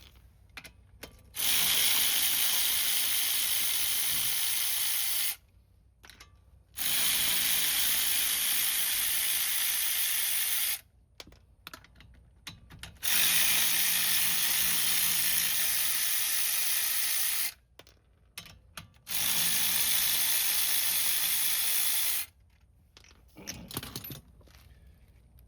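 A powered jack raising the car: its motor runs in four bursts of about four seconds each, with short pauses and small clicks between them.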